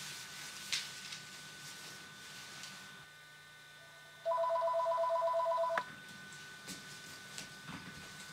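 Electronic telephone ringer trilling once for about a second and a half, a fast two-tone warble that stops with a click. Faint rustles and a small knock come before it.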